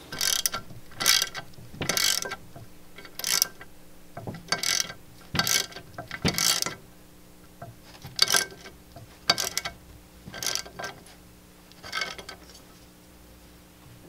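Socket ratchet wrench clicking in short bursts as it is swung back and forth, driving a long M6 bolt against a steel plate to jack a rocker-arm shaft out of a quad's cylinder head. About a dozen ratcheting strokes come roughly a second apart and stop near the end.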